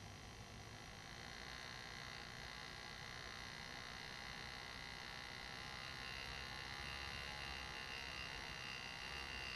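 Lindsay PalmControl air-powered engraving handpiece buzzing as its graver cuts shading into a steel plate: a steady high-pitched buzz that gets gradually louder.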